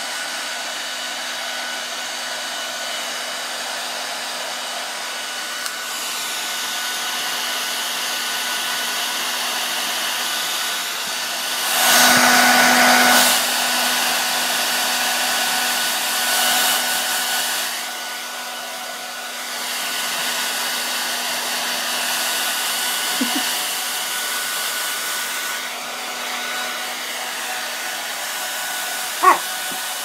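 Handheld hair dryer running steadily, a motor whine over rushing air, swelling louder for about a second and a half about twelve seconds in. A brief squeak sounds near the end.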